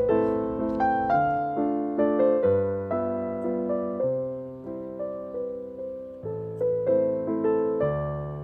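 Background piano music: a gentle run of single notes and chords, each struck and fading away.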